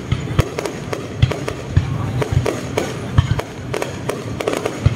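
Aerial fireworks going off in quick, irregular sharp bangs and crackles, several a second.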